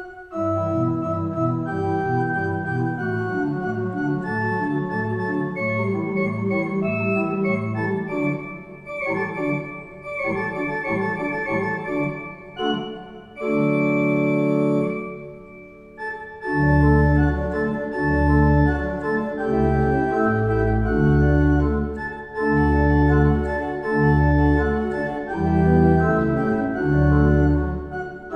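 Church pipe organ playing: a run of quick notes, a thinner stretch around the middle with one held chord, then deep pedal bass notes joining in for the second half.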